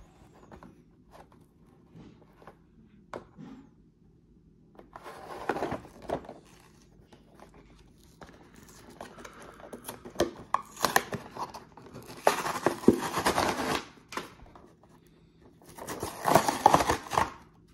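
Clear plastic blister packaging crinkling and tearing as it is pried and peeled off the cardboard backing card of a Hot Wheels monster truck toy. It comes in several bursts, the longest a little past the middle and another near the end.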